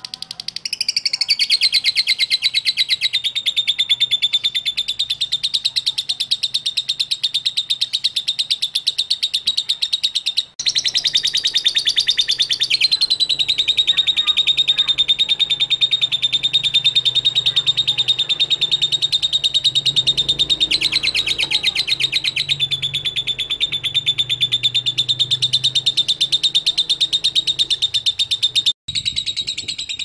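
Lovebird singing ngekek: a long, unbroken, high-pitched chattering trill of very rapid chips, delivered non-stop in the 'konslet' style. It cuts off abruptly about ten seconds in and again near the end, each time picking straight up again.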